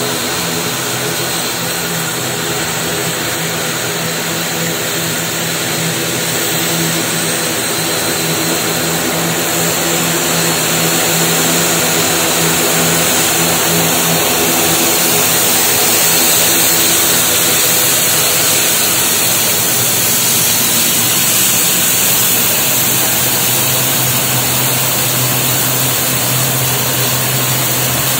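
ATR 72 turboprop's twin Pratt & Whitney Canada PW127 engines and propellers running at taxi power: a steady drone with a high whine. It grows louder over the first half as the aircraft taxis close past.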